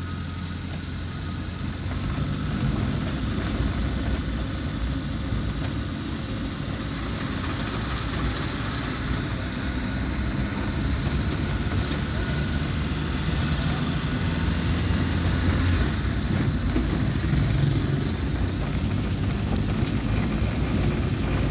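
Engine and tyre noise of a moving vehicle, a steady low drone that slowly gets louder as it drives on.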